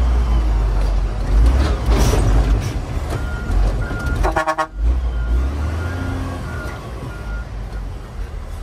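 Heavy diesel earthmoving machinery and dump trucks running with a deep, steady engine rumble. From about three seconds in, a reversing alarm beeps repeatedly at one pitch. About halfway through, a short horn toot sounds and breaks off abruptly.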